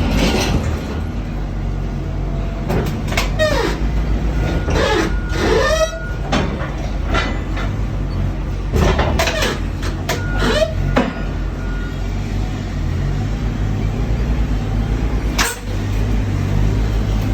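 Box truck engine idling steadily, with several short squeals and knocks over it and one sharp knock near the end.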